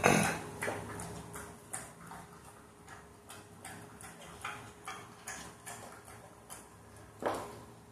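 American Bulldog chewing a piece of raw steak: a run of wet, smacking chews and clicks, a few each second, with louder chomps at the start and near the end.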